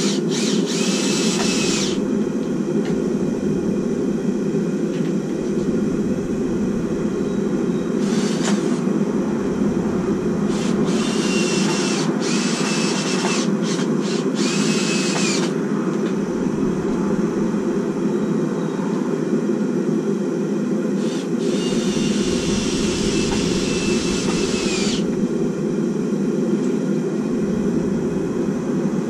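Steady roar of a running blacksmith's forge. It is broken five times by a high whirring power tool that runs for a second or so each time, and for about three seconds near the end.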